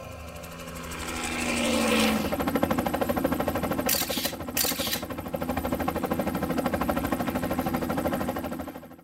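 Logo-intro sound effect: a rising whoosh, then a rapid pulsing mechanical buzz with two short hissing bursts in the middle, cutting off suddenly near the end.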